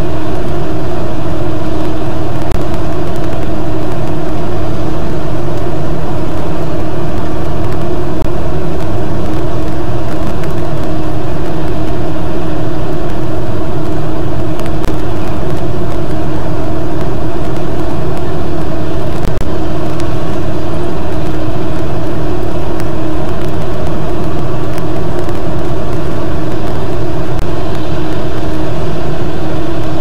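Loud, steady rumbling noise with a constant hum, picked up by the nest-box webcam's microphone; it does not change at all, and no bird calls stand out.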